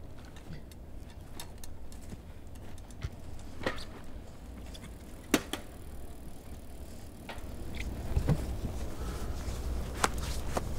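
Bicycle being ridden away: scattered clicks and rattles over a low steady rumble, with one sharp click about five seconds in and the rumble growing louder near the end.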